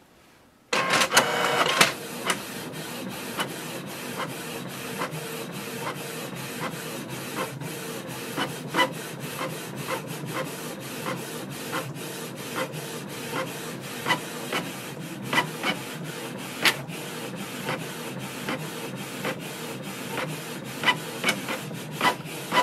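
Canon Pixma TS3420 inkjet printer printing a page. There is a louder burst of mechanism noise about a second in as it starts, then a steady whir with frequent short clicks while the page feeds through.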